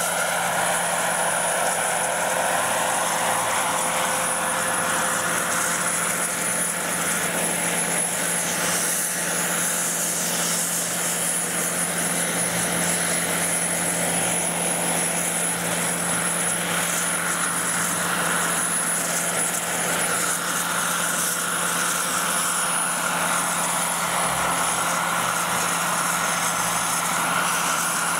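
Radio-controlled scale model helicopter flying low and hovering, its motor and rotors giving a steady drone with a high whine.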